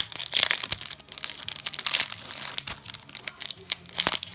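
Foil wrapper of a Yu-Gi-Oh! booster pack crinkling and tearing as it is opened by hand: a dense run of sharp crackles.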